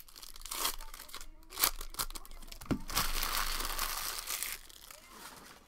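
Foil trading-card pack being torn open and crumpled: brief crinkles with one sharp crackle about a second and a half in, then a longer, louder stretch of crinkling from about three seconds in.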